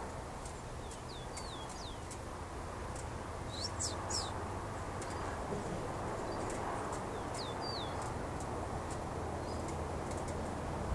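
Rufous-collared sparrows calling back and forth: scattered short high chips and pairs of brief downward-slurred whistles, with a louder pair of sharp notes about four seconds in, over a steady low background hum.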